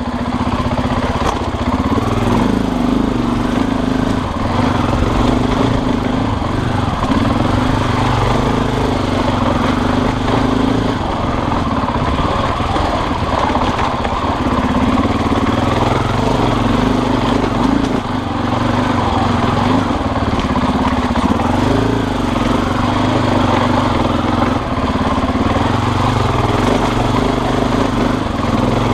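Motorbike engine running steadily while the bike is ridden along, its pitch and level shifting in steps every few seconds with the throttle.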